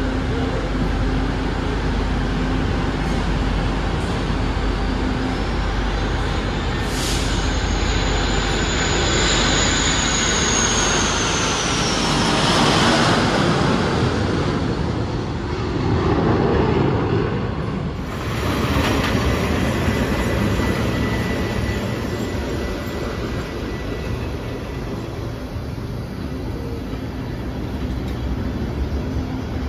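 Passenger train running along the track, heard from inside the carriage as a steady rumble and rail noise. A high whine rises and then falls in the first half.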